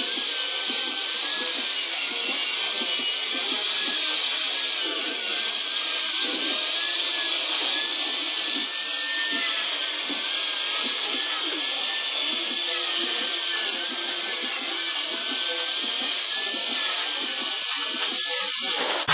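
A power tool running steadily through the whole stretch, a loud high hiss with a faint whine that wavers slightly in pitch as it works the metal.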